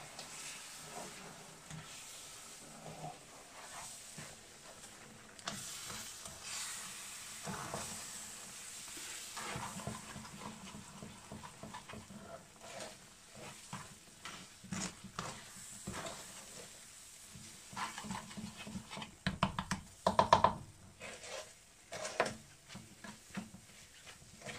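A spatula stirring and scraping a thick besan, sugar and milk mixture around a frying pan, with a soft sizzle from the hot pan as the mixture is cooked down for barfi. The scrapes and knocks grow quicker and louder near the end.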